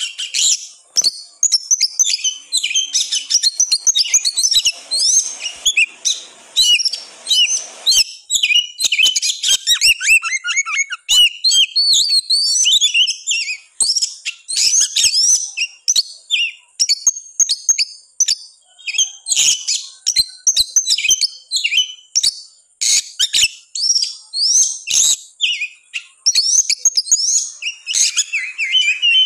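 Oriental magpie-robin (kacer) singing without pause, a dense, fast run of sharp chirps, trills and whistled notes. It is the worked-up, insistent 'gacor ngotot' song of an agitated bird, the kind played to provoke other kacer into singing.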